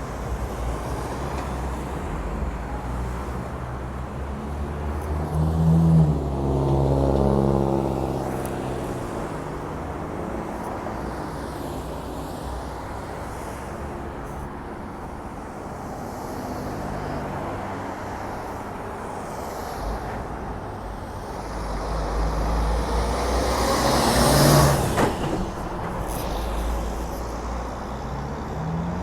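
Road traffic: a steady engine rumble and tyre noise. About five seconds in, one vehicle's engine drone swells louder for a few seconds, and near the end another vehicle passes close.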